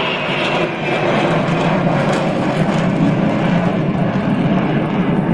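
Jets of a refueling tanker and fighter formation flying over: steady, loud jet-engine noise, with its weight low down, growing slightly about a second in.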